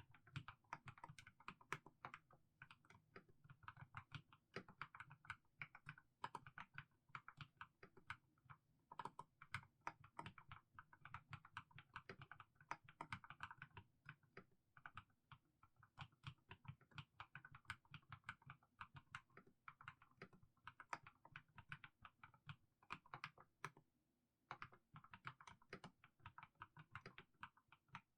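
Mechanical keyboard with fully lubricated Haimu Sea Salt switches being typed on slowly and steadily, a continuous run of soft keystrokes with a short pause about three-quarters of the way through.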